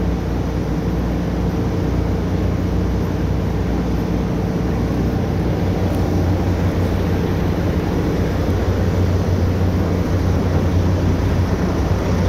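Oil drilling rig machinery running: a steady, loud mechanical drone with a deep hum, a little louder in the second half.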